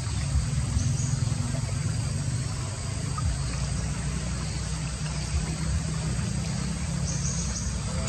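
Steady low rumble with a hiss over it, and a few faint, short high chirps from blue-throated bee-eaters about a second in and again near the end.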